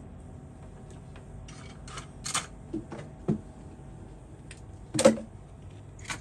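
A handful of sharp clicks and knocks from tools and parts being handled on a repair bench, the loudest about five seconds in, over a steady hum.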